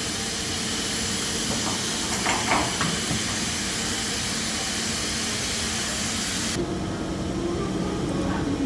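Compressed air hissing steadily, cutting off abruptly about six and a half seconds in, leaving a low steady machine hum.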